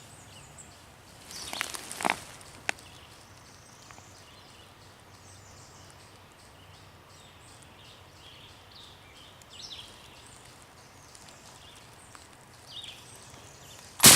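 Quiet woodland with faint, scattered songbird chirps, a brief rustle about two seconds in and a single sharp click. At the very end a shotgun blast goes off suddenly, the loudest thing by far, fired at a turkey.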